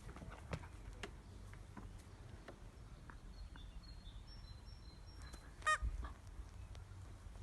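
A dog's rubber squeaky toy gives one short, loud squeak a little past halfway, as it is bitten. Faint ticks and knocks from the dog handling the toy come before it.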